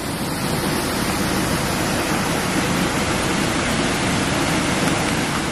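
Steady rushing of river water, a dense even roar that fades out near the end.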